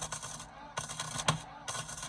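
MIG welder laying short tack or stitch welds on sheet-metal body structure: about four brief bursts of crackling hiss, each under half a second, with sharp clicks between them.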